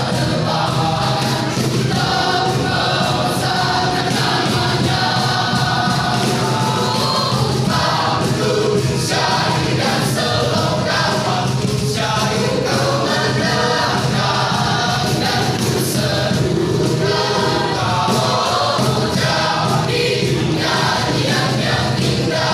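Church youth choir singing.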